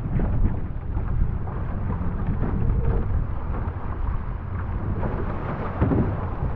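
Wind buffeting the microphone, over water rushing and splashing along the hull of a one-person outrigger canoe running downwind through choppy swell.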